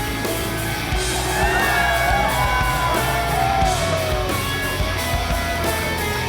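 Loud rock music with a yelled vocal line whose pitch glides up and down.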